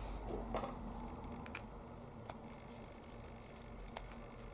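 Handling noise from a plastic two-button car key fob case: a brief rustle, then a few small sharp clicks, the last as a small screwdriver tip meets the case.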